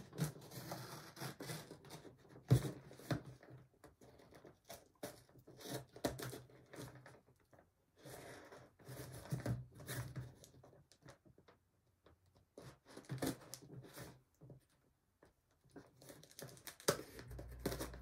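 A knife slitting the packing tape on a small cardboard box: short, irregular scraping and tearing strokes with a few sharp clicks, stopping and starting.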